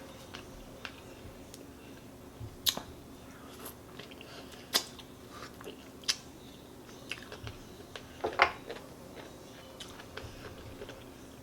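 Close-up chewing and mouth smacking from a person eating chicken and vegetable soup, with a few sharp wet clicks. A brief voiced sound comes about eight seconds in.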